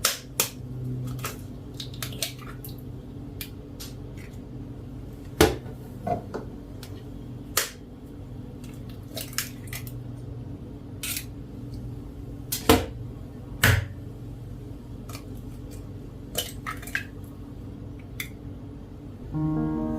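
Scattered light clinks and knocks of small hard items being handled, about one or two a second with a few louder ones, over a steady low hum.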